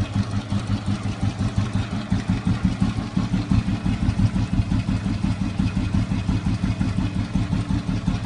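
1969 Enfield Bullet's single-cylinder four-stroke engine idling with its even, steady exhaust thump, about five beats a second.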